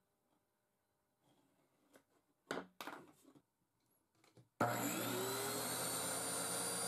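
A few light knocks and rubs of wood being handled, then, a little past halfway, a homemade table saw's circular blade is switched on: its motor whine rises briefly as it spins up and then runs steady and loud.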